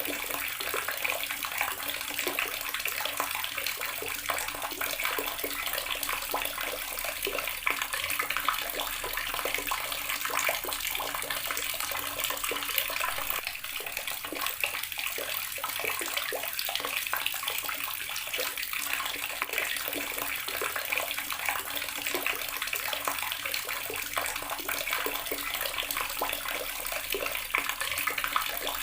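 Water tap running steadily, its stream splashing and pattering onto a hard surface below.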